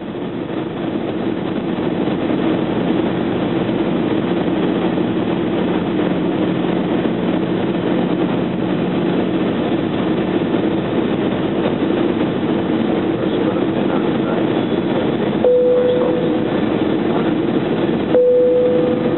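Airbus A320 cabin noise on approach: the steady rush of the engines and airflow with a low hum. Near the end the sound breaks off briefly twice, each time followed by a short steady tone.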